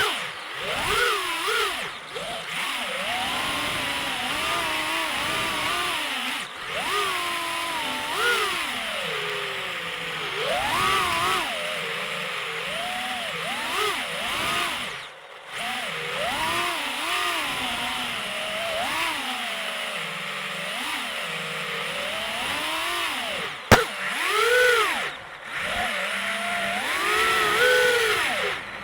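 FPV racing quadcopter's brushless motors and propellers buzzing, their pitch rising and falling constantly with the throttle and briefly dropping away a few times. A single sharp click cuts through about three quarters of the way in.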